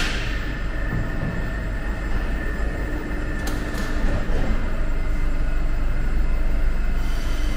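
Metro train standing at the platform with its doors open, giving a steady low rumble and hum along with the platform's echoing ambience. Two faint clicks come about three and a half seconds in.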